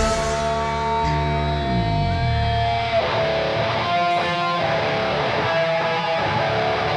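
Live rock band playing a section without drums: electric guitars ring out on sustained chords. The low notes slide down in pitch between one and three seconds in, then the guitars settle into held, ringing notes.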